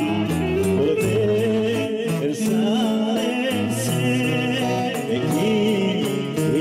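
Greek folk dance music playing steadily, with singing over instruments and a regular beat.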